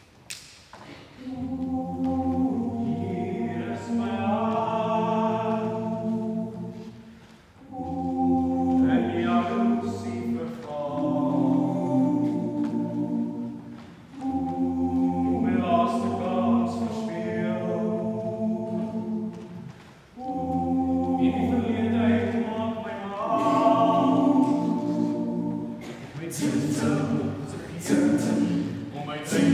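Male voices singing a cappella in close harmony, held chords in about four long phrases with short breaks between them. Near the end, sharp knocks come in with the singing.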